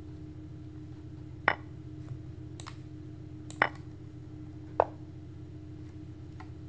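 Online chess board's piece-move sounds: three sharp clicks as a rook captures on c8, the other rook recaptures and a bishop moves, with two fainter ticks between them. A steady low hum runs underneath.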